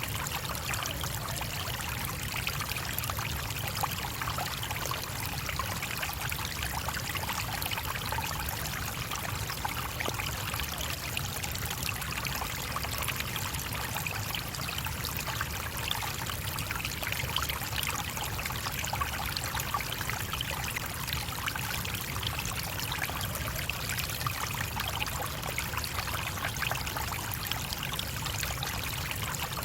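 Small stream (brook) running over stones: a steady babble of flowing water with fine trickling and splashing, unbroken throughout.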